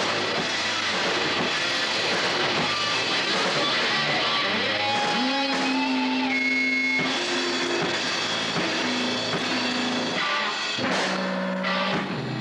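Live rock band playing loud, with electric guitar and drums. About five seconds in, the dense full-band playing drops back to held guitar notes and sparser playing.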